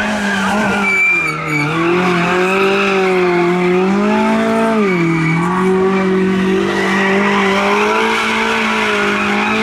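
Peugeot 106 rally car engine running hard at high revs, its pitch dipping sharply twice, about one and a half and five seconds in, then climbing again.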